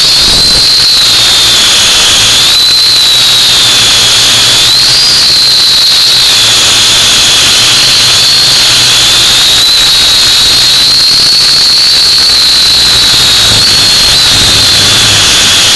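Small drone's electric motors and propellers whining loudly and steadily, heard close up from the drone's own camera; the pitch keeps rising and falling a little as the drone flies.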